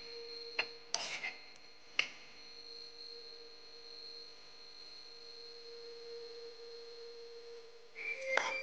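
A spoon knocking and scraping against a bowl as chicken and mushroom chunks are stirred in marinade, with a few sharp clicks in the first two seconds. A faint steady high-pitched tone runs underneath, and a louder tonal sound comes in near the end.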